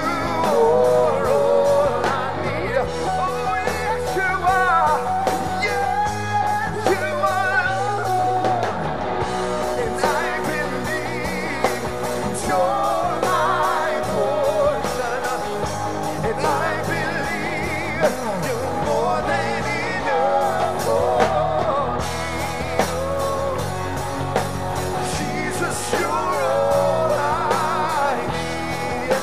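Live band performing a gospel song: a male and a female lead singer taking turns and singing together through microphones, over electric guitars, keyboard and a steady beat.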